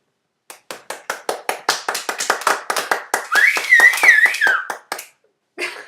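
Hand clapping: a few hands applauding at the end of the song, in quick irregular claps that stop about five seconds in. A high wavering tone rises over the clapping about halfway through.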